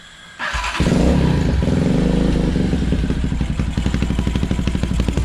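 Small mini bike engine running with a rapid, even firing beat, cutting in suddenly about half a second in.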